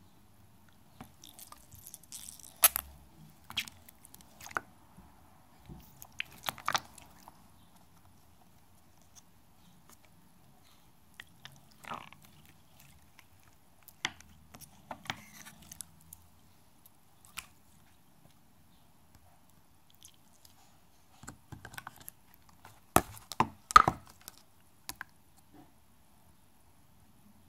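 Slime being squeezed and handled close to the microphone: scattered sticky clicks and crackles in short spells, with a few sharp knocks, the loudest cluster about three-quarters of the way through.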